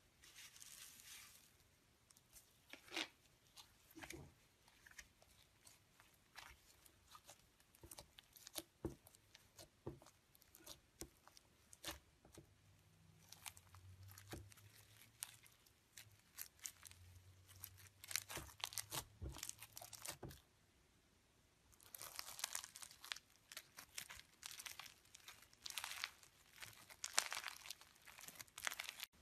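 Faint, irregular crackles, pops and squishes of slime mixed with foam beads as it is squeezed and pressed by hand, turning into a denser run of crunchy crackling after a short pause near the end.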